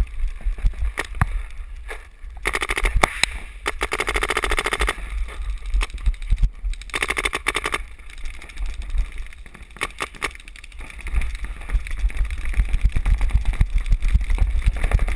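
Paintball marker firing rapid strings of shots: one long string of a couple of seconds a few seconds in, a shorter one about seven seconds in, and scattered single shots between.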